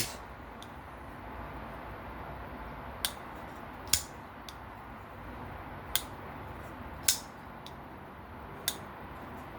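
Folding knife blade swinging open and shut, five sharp metallic clicks a second or two apart as it locks and closes. The freshly cleaned pivot runs free enough for the blade to fall shut on its own.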